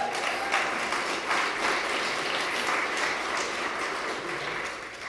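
Audience applauding in a large hall, a steady clapping that dies away near the end.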